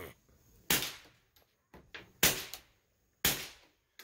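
Three suppressed shots from a Ruger Mark IV .22 LR pistol fitted with an Advanced Armament Prodigy suppressor, firing supersonic ammunition: sharp cracks about a second and a half apart, then a second apart, each dying away quickly.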